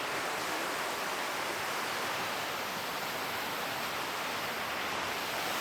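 Steady, even rush of the Tumpak Sewu waterfall's falling water.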